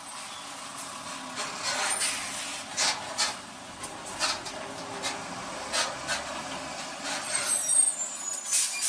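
Traffic noise from container trucks passing close: a steady hiss with short, sharp hisses about once a second, and a brief high squeal near the end.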